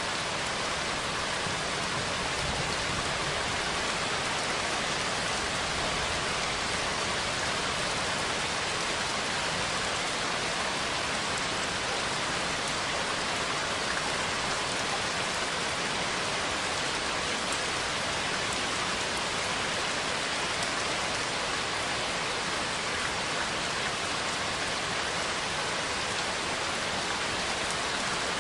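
Steady rain falling on a surface, a dense even hiss of drops without a break.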